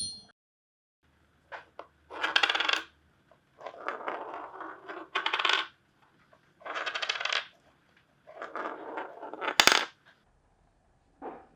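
Wedding ring sound effects: a metal ring spinning and clinking, played as a series of separate short takes of about a second each with silent gaps between them, a sharp clink about ten seconds in.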